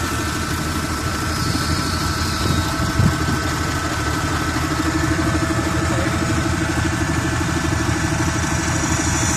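Steady engine-like drone of the butt fusion welding machine's power equipment running while the HDPE pipe ends are held under hydraulic pressure against the heater plate. A brief thump about three seconds in.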